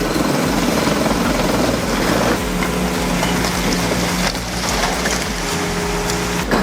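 Heavy diesel earthmoving machine running under load: a dense, steady mechanical noise, with a steady engine drone coming in about two seconds in.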